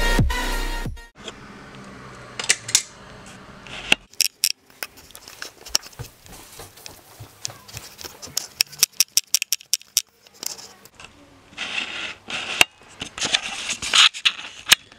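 The tail of an electronic intro track cuts out in the first second, then close-up handling noise of a handheld camera: irregular clicks, taps and rustles, with some breathy hiss near the end.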